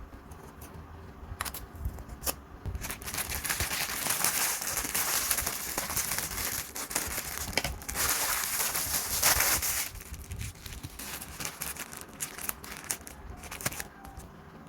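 Plastic shrink-wrap being peeled and crumpled off a cosmetics box. A few sharp crackles come first, then a long run of dense crinkling, then more scattered crackles near the end.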